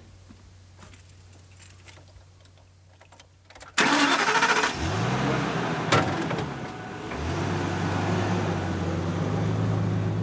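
A vehicle's engine is cranked and starts about four seconds in after a quiet stretch. The engine then revs up, falls back briefly, and rises again to a steady run as the vehicle gets under way.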